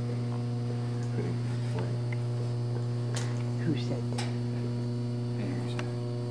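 Steady low electrical hum with a ladder of overtones, with a few faint clicks and scuffs over it.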